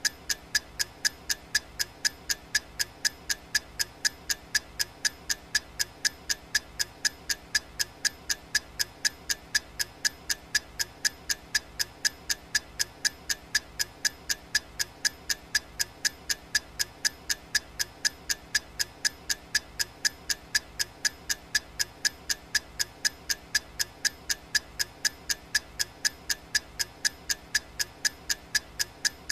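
Clock-style ticking sound effect of a countdown timer: sharp, evenly spaced ticks, several a second, going on without a break.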